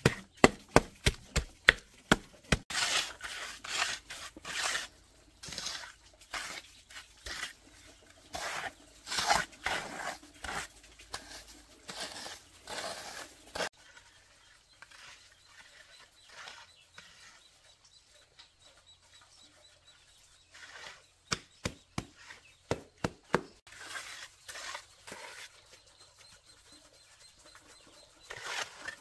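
A hand trowel working wet concrete: repeated scraping strokes as the cement is spread and smoothed, with runs of sharp taps at the start and again about two-thirds of the way through.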